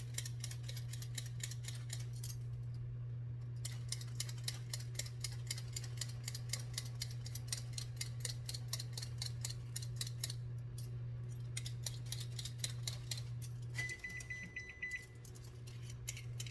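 Quick, rhythmic scraping strokes of a potato peeler on a potato, with two short pauses, over a steady low hum. About fourteen seconds in, the oven gives a high steady beep lasting about a second.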